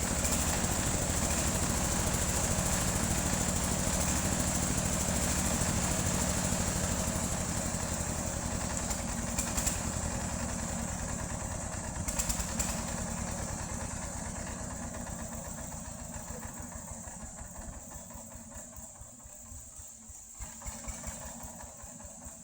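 Sawmill machinery running: a steady engine drone with a thin high whine over it, which gradually grows quieter over the second half.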